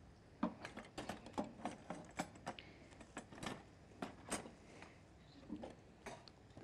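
A carrot being grated by hand on a grater: faint, short scraping strokes, about three or four a second, in an uneven rhythm.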